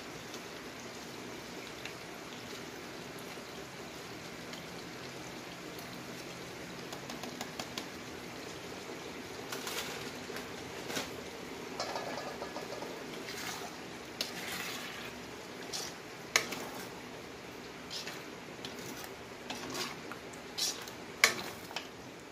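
Ground pork and tomato sauce sizzling steadily in a stainless frying pan. Scattered clicks and knocks of utensils come in the second half, the loudest near the end as a spatula starts stirring the sauce.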